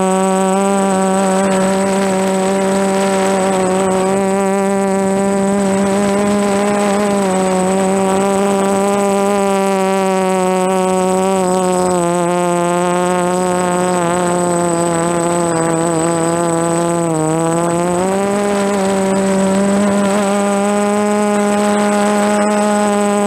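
DJI F330 Flamewheel quadcopter's DJI motors and propellers buzzing steadily in flight, the pitch stepping slightly up and down and dipping briefly about 17 seconds in before rising again. A thin steady high whine runs above it.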